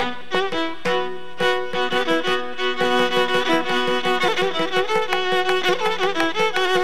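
Carnatic violin playing a melody with sliding, oscillating ornaments (gamakas) over a steady shruti-box drone. A mridangam accompanies it with quick hand strokes, which grow busier about halfway through.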